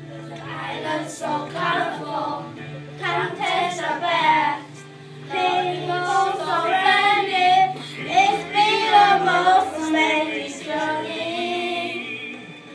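A boy singing a song into a microphone over a karaoke backing track, with a short break in the singing about five seconds in.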